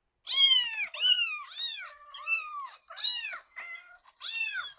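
Cats meowing: a quick series of about eight high-pitched meows, each rising then falling in pitch, some overlapping.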